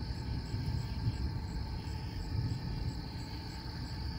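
Night insects, crickets, trilling steadily in a high chorus, with a faint higher chirp repeating about three times a second and a low, uneven noise underneath.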